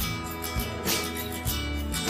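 Background music with strummed acoustic guitar and a steady beat.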